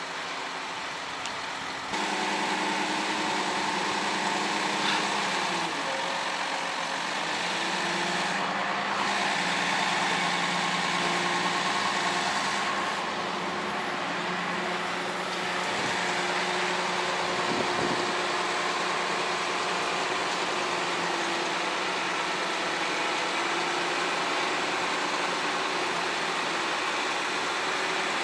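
Ponsse Buffalo forestry forwarder's diesel engine running as the machine is driven up onto a lowbed trailer. It revs up about two seconds in, then holds, its pitch rising and falling with the throttle.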